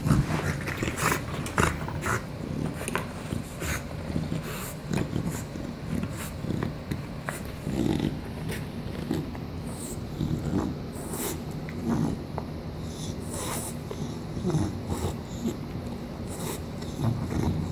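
English bulldog chewing on a chew toy: irregular gnawing clicks over its heavy breathing.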